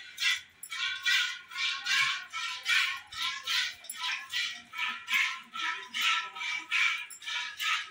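Hand milking a cow: milk squirting from the teats into a steel pail, a rhythmic hiss of about two to three squirts a second.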